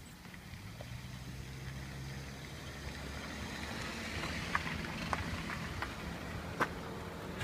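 A motor vehicle's engine running close by, its low hum building as it approaches and passes, with a rushing noise that swells and fades around the middle. Several sharp clicks come in the second half, the loudest near the end.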